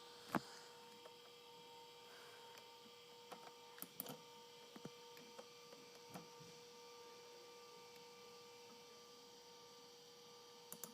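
Near silence with a faint steady hum and a handful of small sharp clicks scattered through it, the loudest just after the start.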